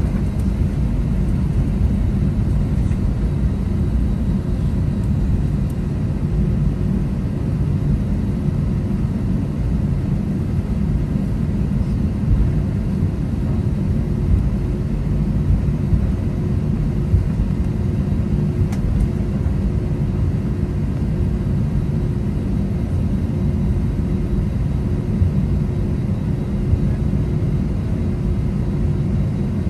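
Airbus A320 jet engines running at taxi power, heard inside the cabin as a steady low rumble with a faint steady hum, as the airliner taxis onto the runway.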